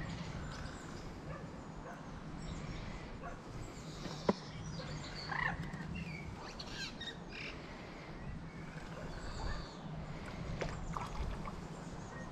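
Pondside outdoor ambience: birds chirping now and then over a steady low rumble, with a single sharp click about four seconds in.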